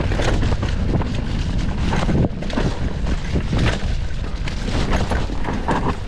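Mountain bike descending rough singletrack: steady wind buffeting on the microphone, with frequent knocks and clatter from the bike over the bumps.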